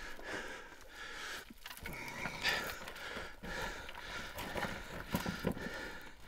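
Irregular scuffs, knocks and small clatters of a person scrambling over loose rock and rubble.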